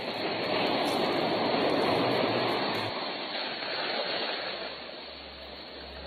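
Ocean surf: one wave of rushing noise swells over the first two seconds, then fades away.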